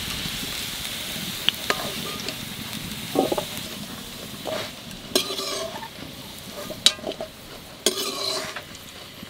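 Potato wedges frying in hot oil in a metal kadai, sizzling as they are stirred and scooped out with a steel spoon. The sizzle fades after a few seconds. Scattered clinks and scrapes of the spoon against the wok and a steel bowl run throughout.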